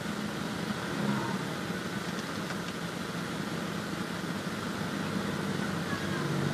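Steady hum of a vehicle engine with road noise, even and unbroken throughout.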